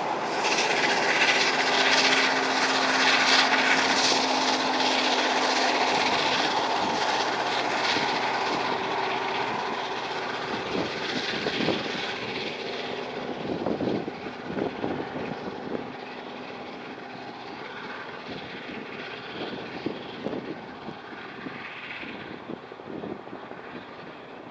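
A steam-hauled train of carriages behind an A4 Pacific locomotive running away into the distance, its rumble and rail noise fading steadily, with a steady hum in the first half and scattered knocks later on.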